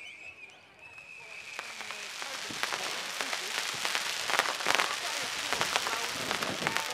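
Aerial fireworks bursting into crackling stars: a dense, rapid crackle that builds from about a second and a half in and is thickest past the middle. A thin high whistle fades out in the first two seconds.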